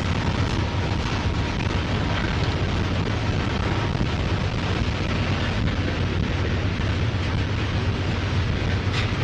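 Freight train rolling past: a loud, steady rumble of diesel locomotives and rail cars.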